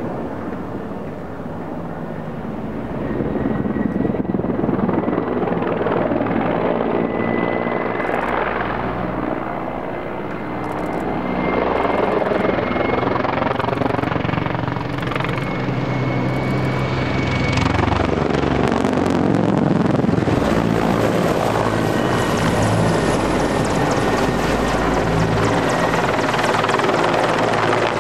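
Mil Mi-24P attack helicopter in a low display flight: the heavy beat of its main rotor over the whine of its twin turboshaft engines. It grows louder as the helicopter passes close and banks, and is loudest about two thirds of the way in.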